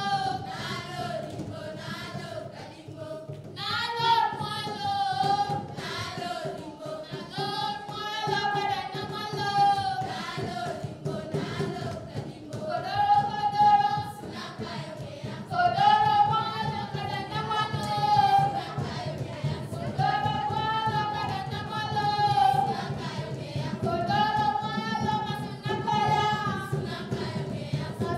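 A girls' choir singing a song together in repeated phrases of about two seconds, with one voice carried on a microphone.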